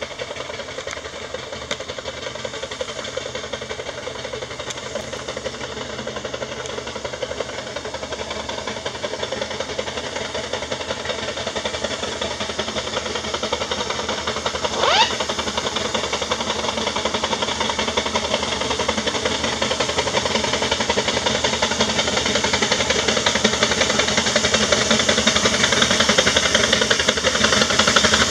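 Two 6-inch-scale Little Samson miniature steam traction engines working under load, towing a 3-ton Burrell, with rapid exhaust beats and steam hiss that grow steadily louder as they approach. A brief rising whistle sounds about halfway through.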